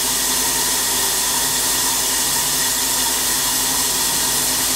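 Tsugami S20D CNC Swiss lathe running through its cycle: a steady hiss with a faint hum of motors.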